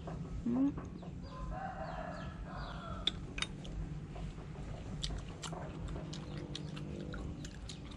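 A rooster crowing once, about a second in, followed by a scatter of small, sharp clicks.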